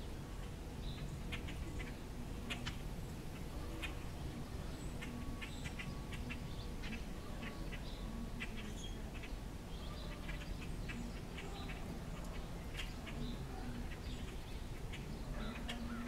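Small songbirds giving short, sharp chip calls, scattered irregularly and at times several a second, over a steady low background rumble.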